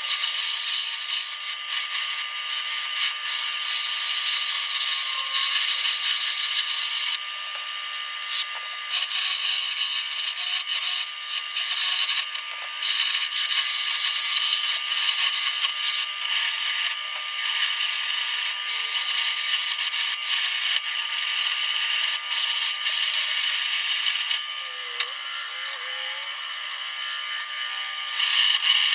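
Wood lathe spinning a wooden ladle-handle blank while a hand tool scrapes against the turning wood in repeated stretches, with pauses every few seconds, over a faint steady hum from the lathe.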